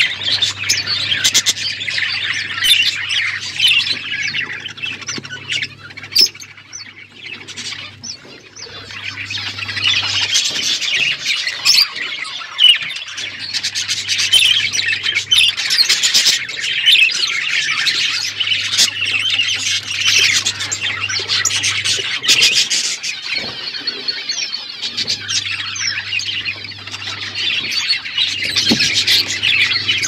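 Budgerigars chattering: a dense, continuous stream of chirps, warbles and sharper squawks. The chatter thins out for a few seconds about a quarter of the way in, then picks up again.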